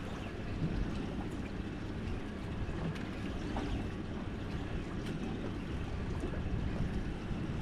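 Steady low rumble of wind on the microphone and sea water around a boat at sea, with a few faint clicks.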